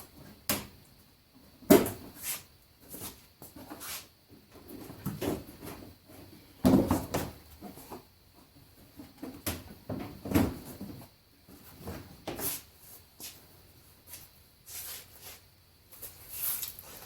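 Irregular knocks, clicks and short scrapes of hand tools and parts being handled during work on a car bumper, with the loudest clatters about 2, 7 and 10 seconds in.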